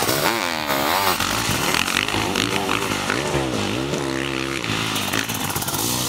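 Sidecarcross outfits' motocross engines revving, the pitch swinging up and down several times in quick succession as the throttle is opened and shut over the bumps and jumps. Near the end, several engines run together.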